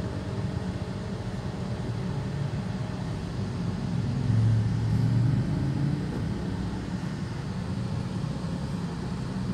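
Low rumble of a Suzuki S-Presso and the motorcycle traffic around it, heard from inside the cabin while creeping along at walking pace. A low drone swells louder about halfway through, then settles back.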